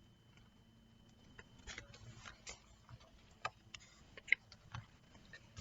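Faint, scattered clicks and light rustles of a paperback picture book's pages being handled and turned, with one sharper click about four seconds in.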